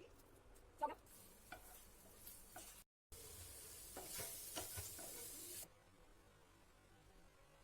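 Faint cooking sounds: a few light taps of a utensil, then after a cut about two and a half seconds of food sizzling in a pan with stirring taps, dropping back to faint taps near the end.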